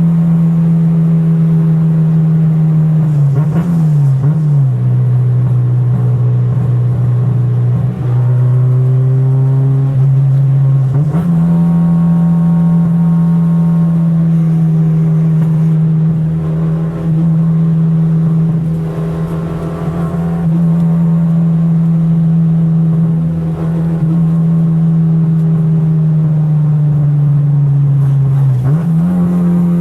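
Car engine running at a steady high speed, a loud constant drone; its pitch drops about four seconds in, comes back up about eleven seconds in, and drops again near the end.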